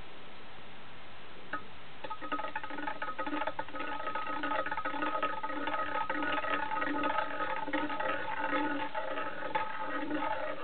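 3D-printed spinning top wobbling on its tip as it slows near the end of its spin: a ringing hum that pulses about twice a second under a rattle of quick clicks, starting with a click about a second and a half in.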